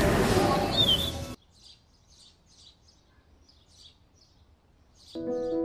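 Outdoor roadside ambience with birds chirping, cut off abruptly about a second and a half in. Faint, short, high bird chirps repeat in the near-quiet that follows. Near the end soft keyboard music comes in with sustained notes.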